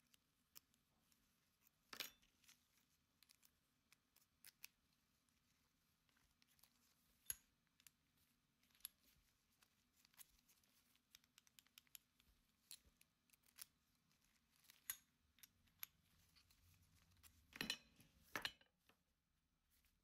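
Amazon Basics disc detainer padlock worked with its key: scattered small metallic clicks and scrapes as the key turns the discs. There is a louder click about two seconds in and a short cluster of sharper clicks near the end as the shackle is shut.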